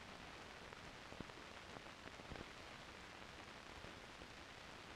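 Near silence: the steady hiss of an old optical film soundtrack, with a few faint clicks.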